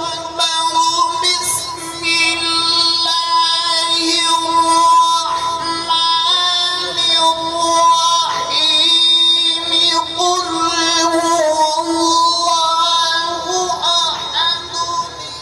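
One high voice in melodic devotional chanting: long held notes, richly ornamented, with quick slides between pitches.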